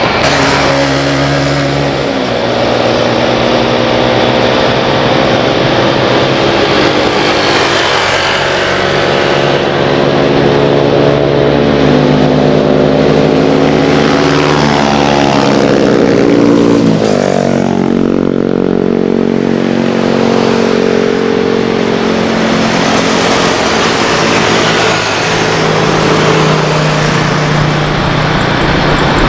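Airbus A330-243F freighter's Rolls-Royce Trent 700 jet engines running at taxi power: a loud whine and drone made of several steady tones that slide down in pitch a few times and climb again about halfway through.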